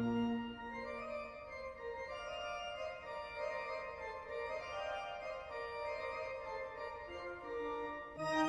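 Organ music playing slow, held chords, growing louder with a deep bass note added near the end.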